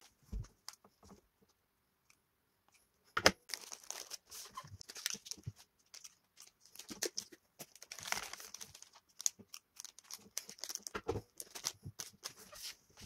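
Plastic snack wrappers crinkling and rustling as they are handled and pressed into place, with scattered small clicks and taps. A sharp knock about three seconds in is the loudest sound; before it there are only a few faint clicks.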